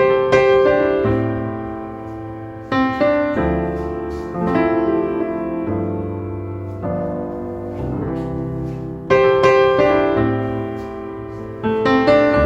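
Background piano music: slow chords struck and left to ring, with fresh chords about every three seconds.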